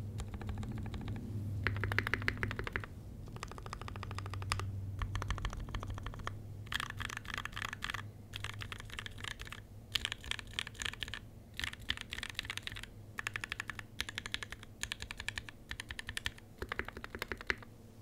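Custom mechanical keyboard with Gateron Black Ink linear switches on an aluminium plate and GMK keycaps, typed on in fast runs of keystrokes broken by short pauses. The typing stops just before the end.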